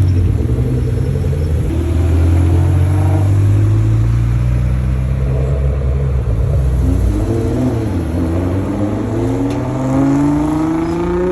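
Sports car engines pulling away. A deep low rumble runs for the first several seconds, then one engine accelerates with its pitch rising steadily toward the end.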